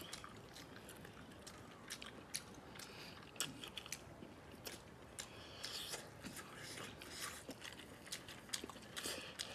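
Faint mouth sounds of eating braised sausage and chicken heads: biting and chewing, with many scattered small clicks and smacks at irregular intervals.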